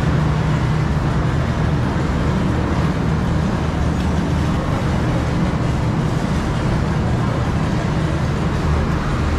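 Steady city road traffic with a continuous low engine hum.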